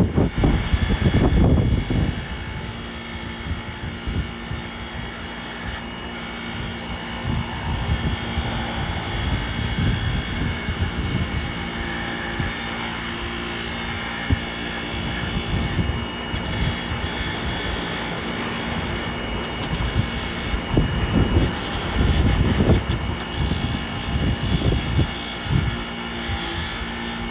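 Old Snap-on bench grinder running steadily with a constant motor hum, while wind buffets the microphone in heavy gusts near the start and again about two-thirds of the way through.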